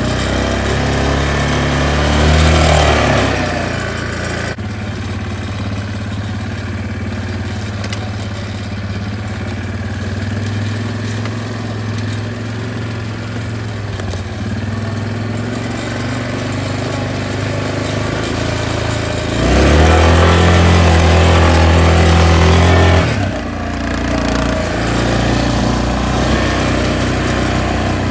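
Small vehicle's engine running as it is driven across grass, revving up about two seconds in and again held at higher revs for several seconds near the end.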